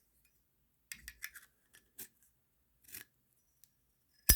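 A vintage 1974 Zippo lighter being handled. A few light metal clicks and scrapes come about a second in, then one loud, sharp metallic click near the end.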